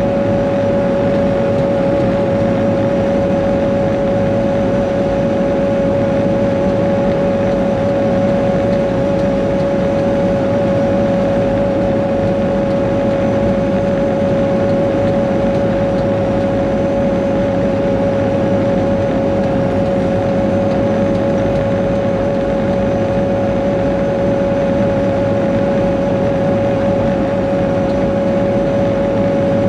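Cat 140G road grader's six-cylinder diesel engine running steadily as the machine drives along, heard from inside the cab, with a steady high whine over the engine noise.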